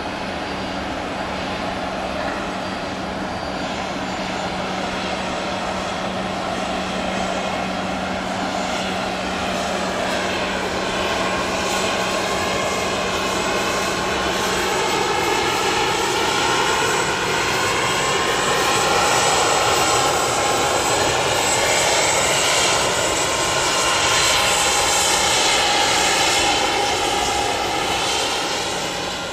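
Embraer ERJ-135 regional jet taxiing, its twin turbofan engines running at taxi power with a steady whine. It grows gradually louder as it comes closer, and its pitch wavers as it moves past.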